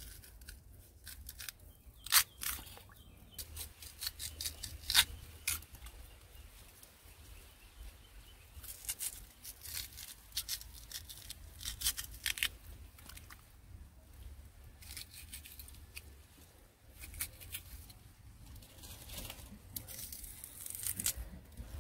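Small knife cutting and snapping raw peeled yam into chunks over a bowl: a string of short, crisp cracks, the sharpest about two and five seconds in and several more between about nine and twelve seconds.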